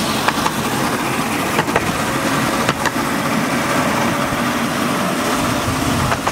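Ride-on miniature railway train running along the track, heard from on board: a steady rumble with a few sharp clicks.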